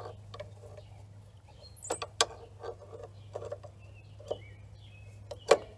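Scattered light clicks and knocks of a screwdriver and rear brake parts as the sticking piston of a 1981 Yamaha XS850's rear master cylinder is worked back and forth, the loudest knock near the end, over a low steady hum.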